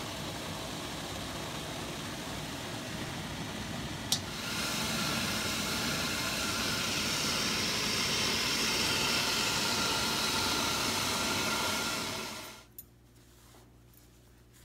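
Water boiling in a stainless steel steamer pot on the stove, a steady rushing hiss of steam. A sharp click comes about four seconds in, after which the hiss grows louder with a thin steady tone in it. Near the end it cuts off suddenly to quiet, with soft cloth rustling and small ticks.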